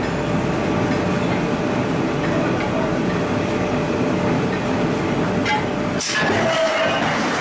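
Steady loud din of forge-shop machinery around a power-hammer forging block. About six seconds in there is a short sharp metallic noise, followed by a brief ringing tone.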